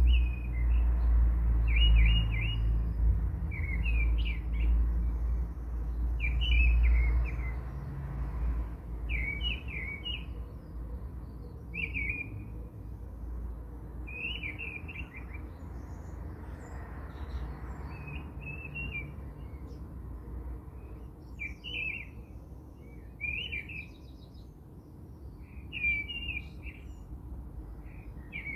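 A small bird chirping over and over, in short bursts of quick notes about every one and a half to two seconds. Under it is a low rumble that is loudest for the first eight seconds or so and then dies down.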